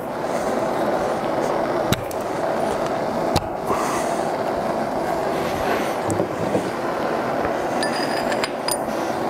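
A steady whirring noise runs under a few sharp metal clicks, about two and three and a half seconds in, as a piston and its pin are worked onto a connecting rod. Near the end a short high metallic ring sounds as a steel drift is brought to the piston.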